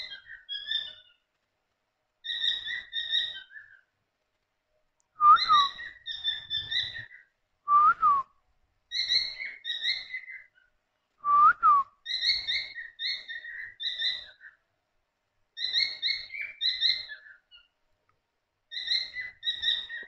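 Cockatiels calling: bouts of short, repeated chirps every second or two, with three louder whistled notes that rise and then fall, about five, eight and eleven seconds in.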